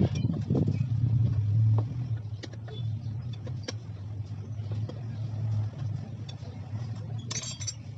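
An engine running steadily as a low hum, a little louder over the first two seconds. Over it come scattered light clicks and knocks from hands handling a stripped scooter crankcase, and a brief metallic rattle near the end.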